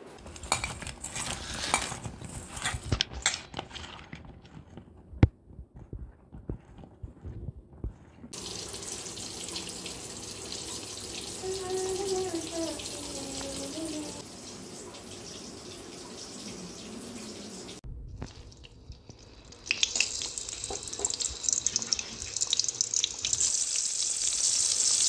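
Kitchen work sounds: knocks and clatter, then water running steadily. About twenty seconds in, loud sizzling and crackling starts as whole green vegetables fry in hot oil.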